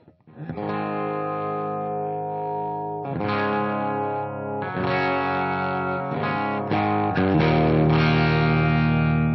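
Electric guitar (a Gibson Flying V) played through a Scarlett Scout tube amp head with 6L6 power tubes into a miked 4x12 cabinet with Vintage 30 speakers. A run of chords, each struck and left to ring, changing several times, with the last and loudest one ringing on for about the final two seconds.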